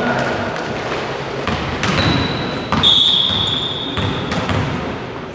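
Volleyball being played in a large hall: the ball struck and landing with sharp slaps and thuds. About three seconds in, a high, steady squeal lasting over a second is the loudest sound.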